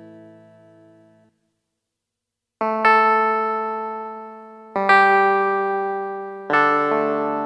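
Roland E-86 arranger keyboard playing a preset tone with an electric-piano-like sound. A fading sound stops about a second in, then after a short silence three chords are struck about two seconds apart, each ringing and dying away.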